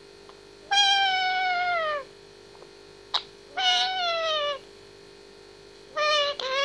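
White Indian ringneck parakeet giving three long drawn-out calls, each sliding downward in pitch, with a sharp click between the first two.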